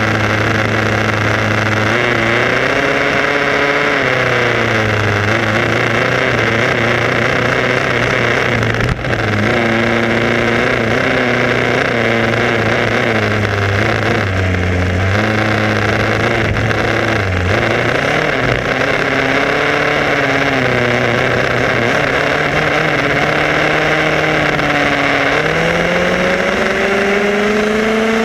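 Small two-stroke petrol engine of an HPI Baja 5B SS gas RC buggy, heard from a camera on the car, revving up and down with the throttle over a steady rush of road and wind noise. The engine pitch climbs steadily near the end as the buggy accelerates.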